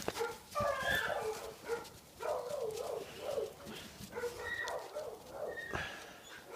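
A pack of dogs barking and whining, many short calls overlapping one another.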